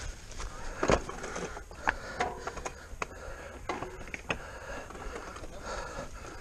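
Mountain bike ridden over rocky, muddy singletrack: irregular sharp knocks and rattles from the bike and its tyres hitting stones, over a steady rush of tyre and wind noise. The loudest knock comes about a second in.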